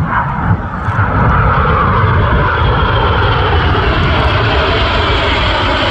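Display aircraft flying past: a loud, steady engine rush with a faint whine that slowly falls in pitch as it goes by.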